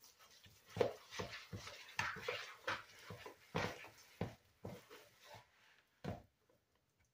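Metal wire whisk stirring and scraping thick dough in a plastic mixing bowl: irregular knocks and scrapes that stop about six seconds in.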